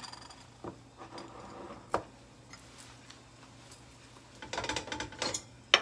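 Quiet kitchen handling sounds: a few sharp clicks and knocks as a glass tea jar with its lid is set down on the countertop, then a short stretch of clinks and clatter near the end as a stainless steel kettle is taken from the gas stove.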